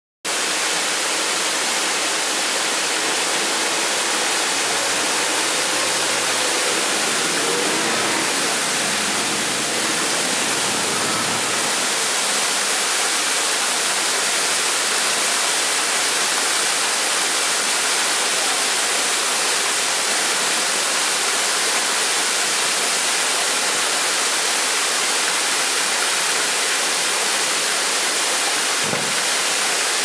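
Bigar waterfall: water pouring over moss-covered rock into a pool, a steady rushing hiss.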